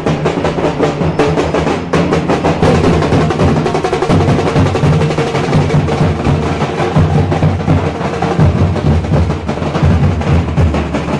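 Large dhol drums beaten with sticks in a fast, steady rhythm.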